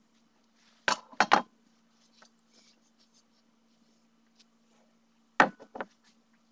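A steel armour plate being handled on a wooden table: two pairs of sharp knocks and clunks, about a second in and again about five and a half seconds in, with small scrapes between. A faint steady hum lies underneath.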